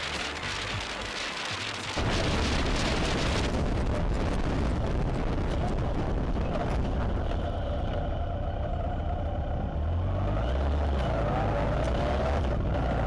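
Motorcycle riding on the road: engine running under wind noise, getting suddenly louder about two seconds in. In the second half the engine pitch rises a few times as it speeds up.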